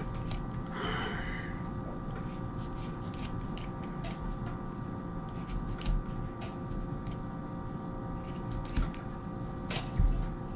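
Scissors snipping through paracord strands: scattered sharp clicks and snips, the loudest near the end. A short breathy vocal sound about a second in.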